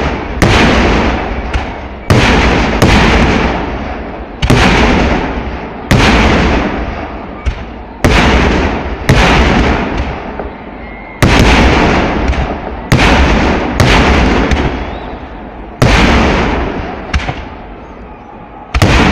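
Kerala temple-festival fireworks: aerial shells going off in quick succession, a sharp loud blast about every second, each trailing off in a rumbling echo.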